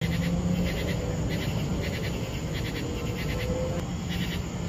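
Night insects chirping in short repeated pulses, about every half second, over a steady low hum.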